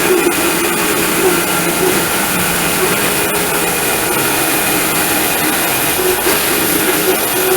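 Homemade sawmill running steadily, a constant machine hum with a hissing saw noise over it, as it mills a beetle-kill pine log.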